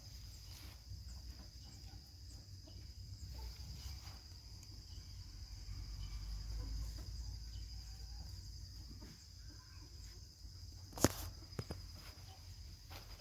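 Faint outdoor ambience: a steady high-pitched insect drone with a low rumble underneath, and a sharp click about eleven seconds in.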